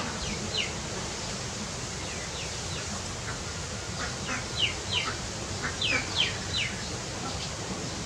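Birds chirping: short, sharp, down-slurred notes, a few scattered at first, then coming thick and fast about halfway through, over a steady background hiss.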